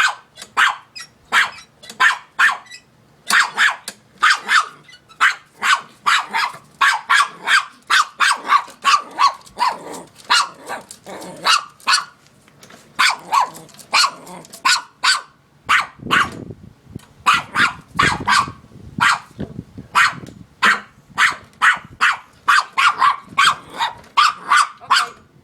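A dog barking nonstop at a lawn mower, short barks two to three a second, with lower, rougher sounds mixed in about two-thirds of the way through.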